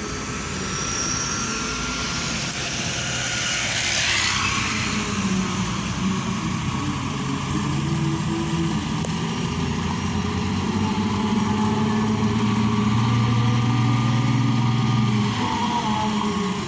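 Cars and motorbikes of a slow procession passing close by: continuous engine and tyre noise, with a car rushing past about four seconds in. A low engine hum grows louder near the end.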